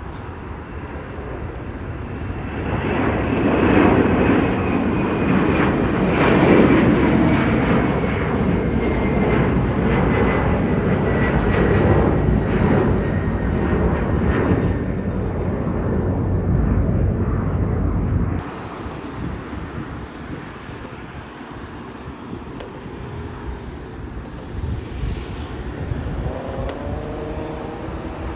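Jet airliner passing close by: its engine rumble builds over the first few seconds, with a high whine slowly falling in pitch. The sound cuts off abruptly about two-thirds of the way through, leaving quieter distant aircraft engine noise.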